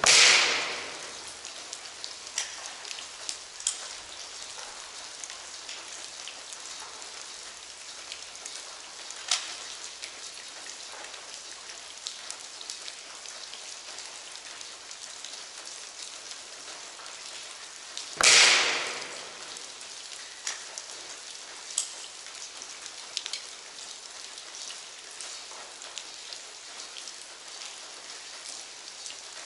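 Two shots from a Crosman Quest 1000 break-barrel air rifle fitted with a gas spring, one at the very start and one about 18 seconds later, each sharp crack ringing on for about a second. Between them is a steady hiss with scattered light ticks.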